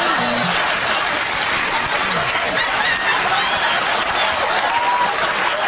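Studio audience applauding and laughing, a dense steady wash of clapping.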